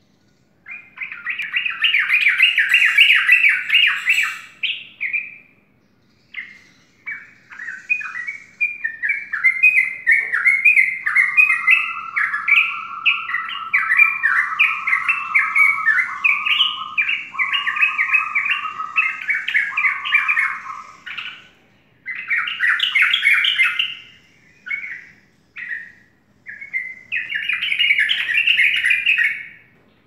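Sooty-headed bulbul singing in long runs of rapid, chattering notes, almost without a break, pausing briefly about five seconds in and several times in the last third. Through the middle a lower, steady rapid trill runs under the song.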